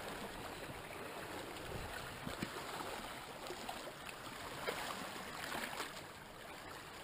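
Sea water swirling and lapping against the rocks at the water's edge: a steady watery wash with a few faint small knocks.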